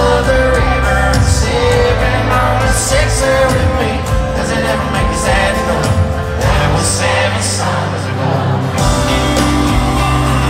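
Live country band in an arena, a male lead vocal over acoustic guitar, bass and drums, heard from far back in the seats. The bass drops out briefly about eight seconds in, then returns.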